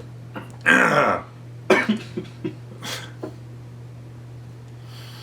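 A man's short throat-clearing sound, followed by a few short clicks and taps, over a low steady hum.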